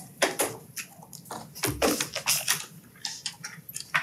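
Scattered clicks, knocks and rustles of handling noise close to a microphone, irregular and of varying loudness.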